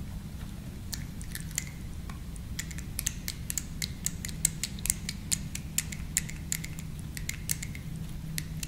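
Quick, irregular light clicks and ticks as a small metal part of a CAV diesel injection pump is turned and wiped with a rag in gloved hands, over a steady low hum.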